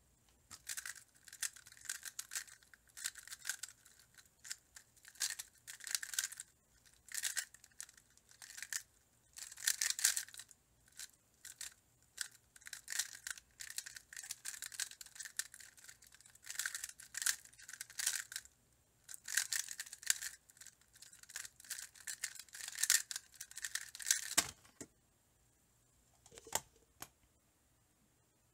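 A Square-1 puzzle being turned fast by hand in a speedsolve: quick bursts of plastic layers scraping and clicking through turns and slices, with short pauses between. It stops with a knock near the end.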